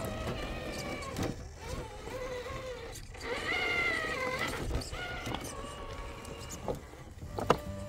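RC rock crawler's electric motor and gear drivetrain whining as it climbs over rocks, the pitch rising and falling with the throttle, loudest about halfway through. A single sharp knock near the end.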